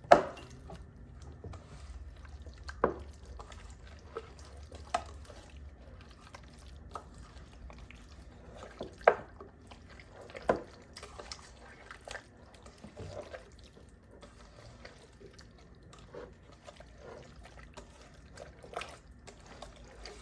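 Irregular wet squelches and slaps as raw chicken pieces are turned over by hand in a thick gochujang sauce to coat them.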